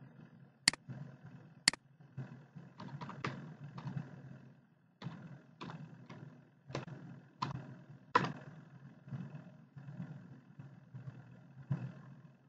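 Computer mouse clicks and keyboard keystrokes: a scattered series of short, sharp clicks, over a low steady background hum.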